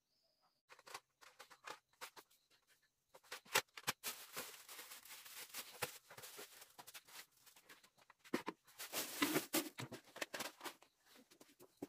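Thin plastic bag rustling and crinkling as hands handle it. Scattered crackles come first, then two long spells of dense crinkling.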